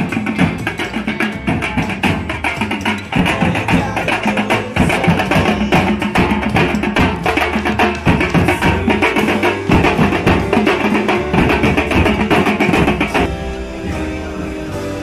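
A marching band of metal-shelled side drums and bass drums beaten with sticks, playing a fast, dense rhythm. About thirteen seconds in, the drumming gives way to quieter music.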